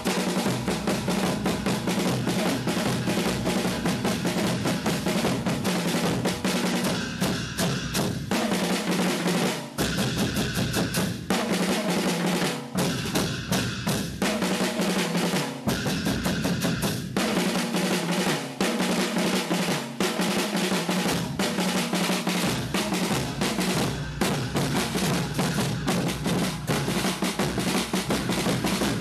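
Marching drum band playing: bass drums and snare drums beating fast and rolling together, with a few brief pauses between phrases.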